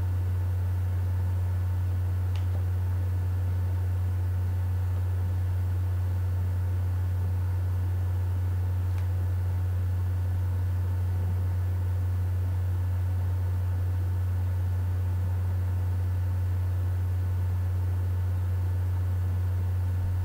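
Steady, loud low hum with an even hiss over it and a few faint thin steady tones higher up. There are two faint ticks, one about two seconds in and one around nine seconds.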